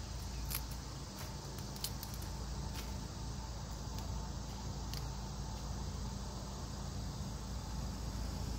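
Steady high insect chirring over a low steady rumble, with a handful of sharp clicks in the first five seconds.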